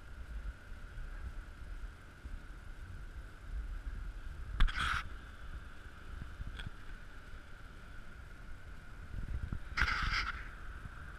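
Small multirotor drone's motors and propellers whining at a steady pitch, heard through its onboard camera, with wind rumbling on the microphone. Two brief, louder rushes of hiss come about five and ten seconds in.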